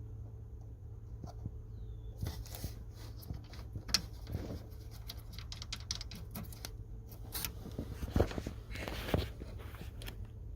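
Scattered light clicks and rustles of handling, with a few sharper ticks a little past the middle, over a steady low hum.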